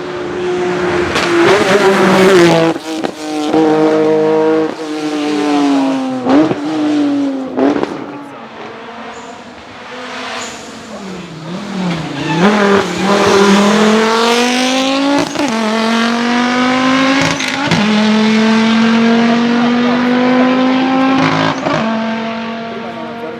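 A race car's engine pulling hard through the gears: the revs climb, then drop sharply with a brief cut at each quick upshift. About halfway the revs fall away low, then build again into a long steady pull that fades near the end.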